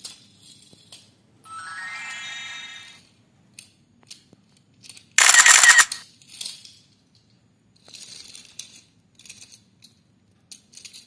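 Light clicks and taps of small die-cast toy trains being set down on plastic track, with added sound effects over them: a rising tone about two seconds in, and a loud, bright effect lasting under a second about five seconds in.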